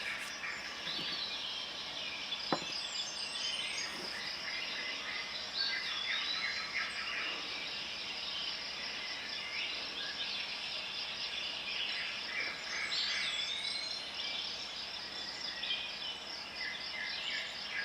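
Insects chirping steadily in a fast, even pulse, with several short bird calls over the top and a single sharp click about two and a half seconds in.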